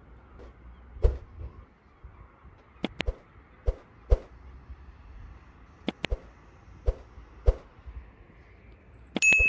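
Footsteps at an unhurried walking pace on hard ground. Sharp double clicks come about three and six seconds in, and a bright ding rings near the end: the click-and-bell sound effects of an on-screen like and subscribe animation.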